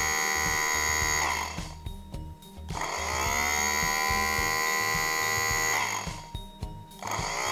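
Brushed DC wiper motor run on its high-speed connection, spinning unloaded with a steady whine. Twice the power is cut and the whine falls away to a stop, then the motor spins back up with a rising whine when the connection is made again: once at about 3 seconds and once near the end.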